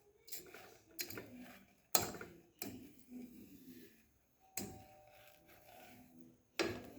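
A spoon knocking and scraping against a pan while it stirs melting sugar, in a string of irregular clinks, the sharpest about two seconds in.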